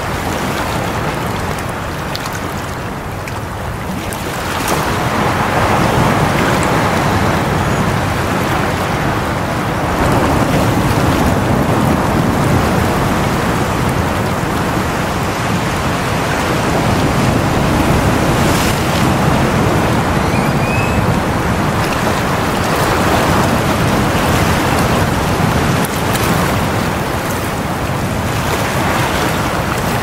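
Sea waves breaking and washing over a rocky shore: a continuous rush of surf that swells louder about four seconds in and again about ten seconds in.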